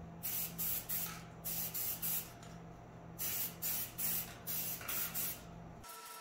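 Aerosol spray paint can sprayed in quick short hisses, three to five at a time in four groups, over a steady low hum. Near the end the spraying and the hum stop abruptly.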